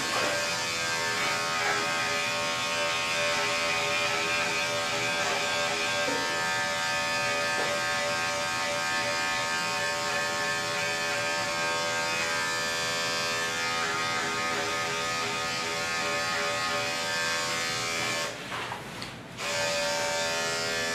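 Andis five-speed electric dog clipper running steadily as it clips a curly dog's coat. Its hum drops away for about a second near the end, then runs again.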